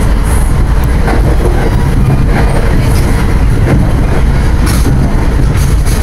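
Inside a moving NJ Transit commuter train car: the steady, loud low rumble of the train running, with the wheels clicking now and then over rail joints.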